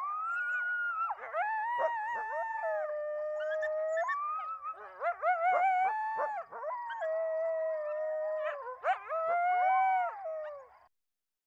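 Several coyotes howling together in long, overlapping, wavering howls, with quick yips mixed in, cutting off shortly before the end.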